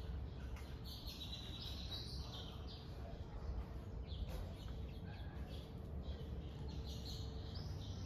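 Small birds chirping and twittering in a few short bouts over a low, steady outdoor background rumble.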